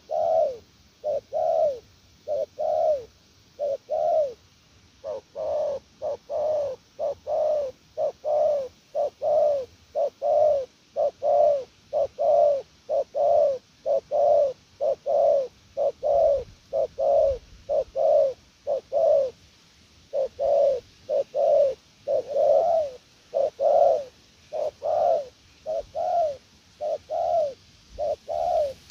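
Spotted dove cooing close by: a long run of short, rising-and-falling coos, about one and a half a second, broken by a couple of brief pauses. These are the soft courtship coos ('gù') of a decoy dove.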